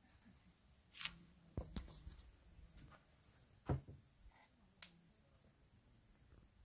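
Near silence broken by a few scattered soft knocks and clicks, the loudest about three and a half seconds in.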